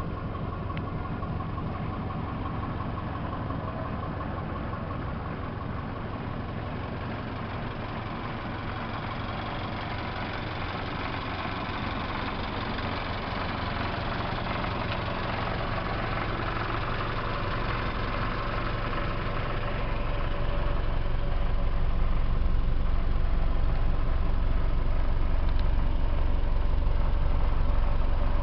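Small fire truck's engine idling steadily. It gets louder and heavier in the low end about two-thirds of the way through.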